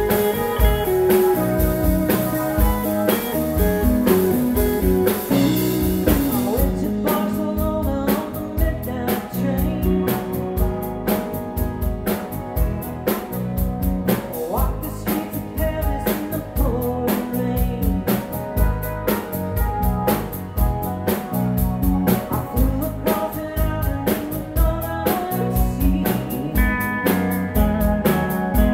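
A blues band playing, with electric guitar, drums and singing over a steady beat. About seven seconds in the sound changes and the drum hits stand out sharper.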